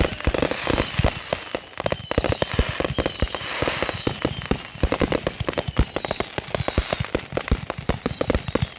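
Fireworks going off: a rapid, dense run of firecracker bangs and pops, with a falling whistle recurring about every second and a half.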